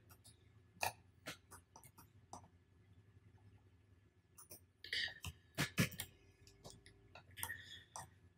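Faint, scattered computer mouse clicks, with a few louder, fuller sounds about five to six seconds in.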